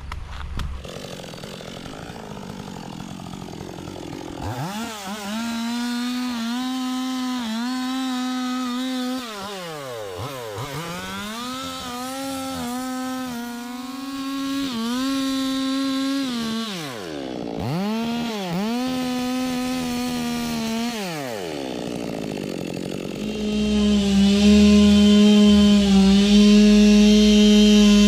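Two-stroke chainsaw revving: the throttle is opened and let off several times, the pitch dropping away between. About 23 seconds in it is held at full throttle, louder and with a rasping hiss, as the chain cuts into the teak wood.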